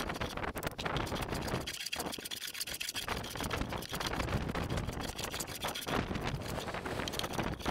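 Hand plane cutting across a wooden tabletop in repeated short strokes, with a brief pause about two seconds in: planing down the crown of the board.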